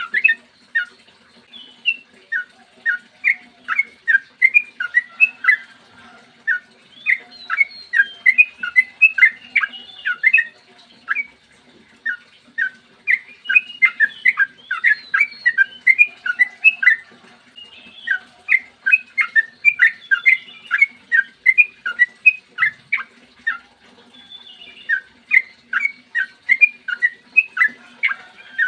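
Yellow-vented bulbul (trucukan) singing in long, rapid runs of short, bubbly notes, phrases of several seconds broken by brief pauses. A faint steady hum lies underneath.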